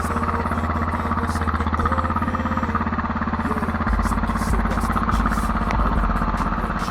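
Honda XRE 300 single-cylinder engine idling with a washer wedged in the exhaust pipe outlet, giving a deep, tractor-like thumping. About four seconds in the beat turns deeper and heavier.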